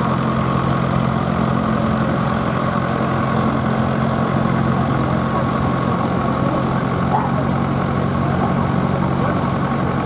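Several vintage grey Ferguson tractors running steadily at low engine speed as they drive slowly past with mounted ploughs, with a faint murmur of voices in the background.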